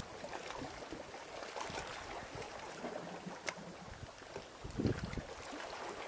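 Faint, steady wash of the sea on a rocky shore, with a few small clicks and a short low bump about five seconds in.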